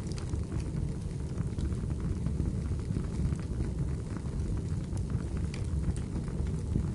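Wood fire burning in a fireplace: a steady low rushing with scattered sharp crackles and pops of the burning logs.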